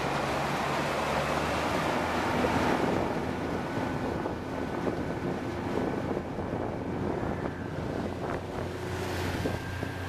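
Small motorboat under way: a steady outboard engine hum under the rush of water and wind buffeting the microphone.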